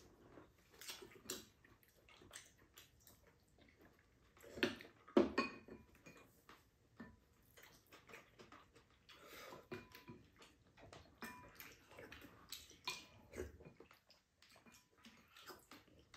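Two people eating at a table: spoons and chopsticks clicking against bowls and a pan, with chewing and slurping of soup. The loudest mouth sounds come about five seconds in.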